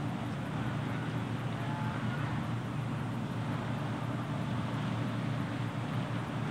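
Steady beach ambience: an even, low rumble of wind on the microphone and small waves on the sand, with no distinct events.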